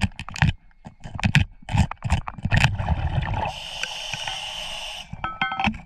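Metal hand tools, a screwdriver and a crevice bar, scraping and knocking against bedrock underwater in a run of sharp irregular clicks. About three and a half seconds in, a steady hiss takes over for about a second and a half. A few quick metallic clinks follow near the end.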